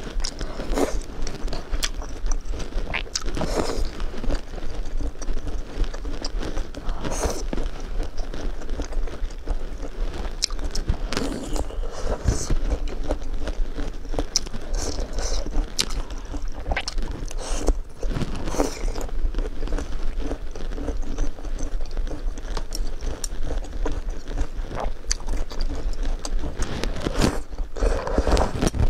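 Close-miked eating of spicy hot pot: chewing and biting on potato slices and noodles, with many short sharp clicks, over a steady low hum.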